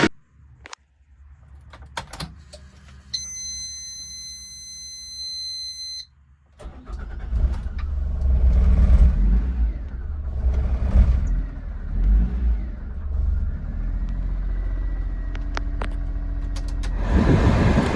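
Suzuki Every van's 660cc three-cylinder petrol engine started after a steady high electronic tone, catching about six and a half seconds in. It is revved up and down a couple of times, then settles to a steady idle.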